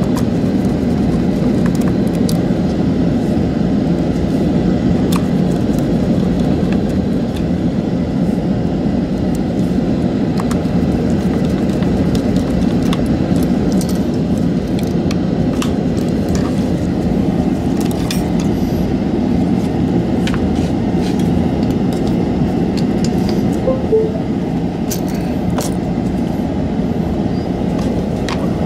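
A steady low rumble, with scattered light clicks and taps of a small screwdriver and plastic parts as a Logitech G502 Hero mouse's shell is screwed back together.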